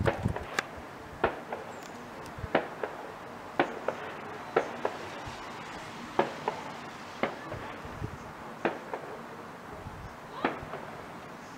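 Distant fireworks going off: a string of short, sharp bangs and cracks, roughly one a second, over a low steady background.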